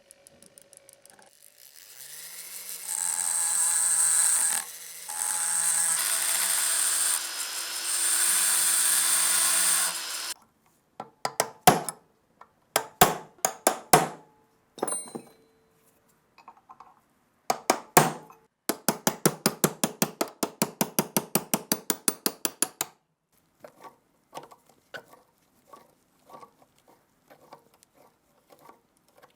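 A small power tool runs for about eight seconds with a steady whine, then stops; sharp clicks and knocks follow, then a fast even run of clicks, about eight a second, for about four seconds, and faint taps near the end.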